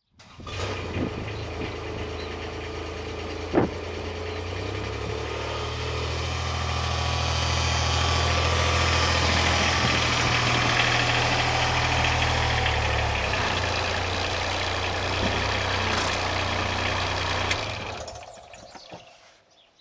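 Kubota RTV-X900 utility vehicle's three-cylinder diesel engine running as it drives up and pulls to a stop, getting louder as it comes close, then switched off near the end. A single sharp knock sounds a few seconds in.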